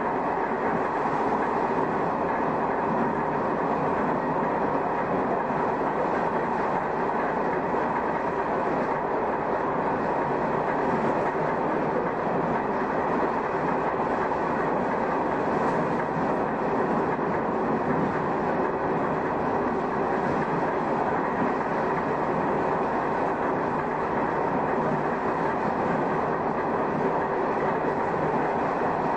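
Shin-Keisei car 252, a nose-suspended-drive electric train, running steadily at speed, heard from the cab: the drone of its traction motors and gears mixed with the noise of its wheels on the rails.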